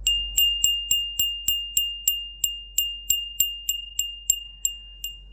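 Small handbell decorated with ceramic roses, shaken so its clapper strikes about three times a second. It gives one steady high ring that carries on between strikes.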